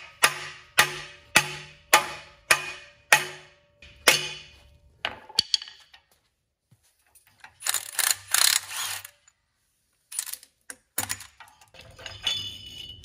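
Hammer blows on the pinion nut driving the pinion gear out of a Dana 60 front axle housing: about eight ringing metal strikes, a little under two a second, over the first four seconds. Then loose metal parts clattering and clinking.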